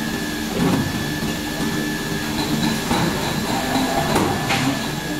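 Plastic hollow sheet extrusion line running: a steady machine hum with a constant high whine, and a few clattering knocks through it, one a little after the start and several in the second half.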